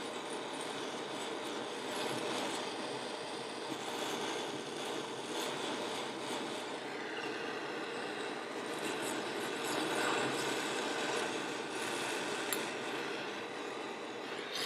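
Handheld gas torch burning with a steady hiss, its blue flame heating a billet aluminium turbo compressor wheel so the wheel will slide onto the shaft.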